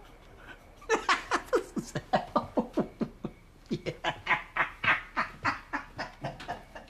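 An old man cackling with laughter: rapid short hoots, about five a second, each falling in pitch. They start about a second in and come in two long runs with a brief break near the middle.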